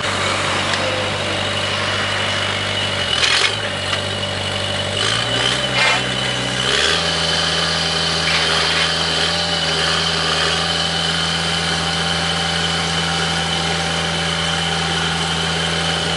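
Engine of a horizontal directional drilling rig running steadily. Its pitch drops about three seconds in and climbs back up about seven seconds in, with a few short clanks along the way, and a thin steady high whine runs over it.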